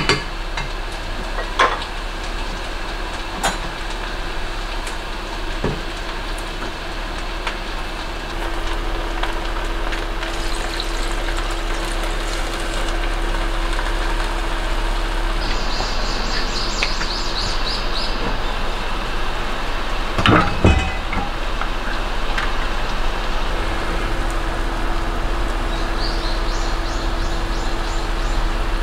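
Steady sizzle and hiss from rice and bean sprouts cooking in an enamelled cast-iron pot on the hob, over a constant hum. A few light knocks come through, with a louder clunk about two-thirds of the way in.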